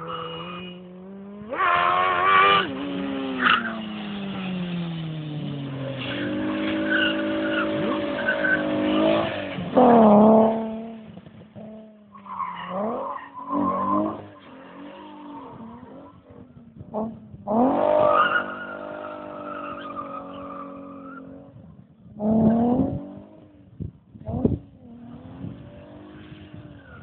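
Alfa Romeo 75 being drifted: its engine revs up and falls away again in several bursts, with tyres squealing as the car slides.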